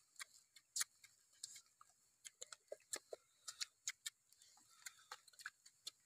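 Close eating sounds: lips smacking and teeth pulling roasted goose meat off the bones, heard as a run of irregular sharp clicks, several a second.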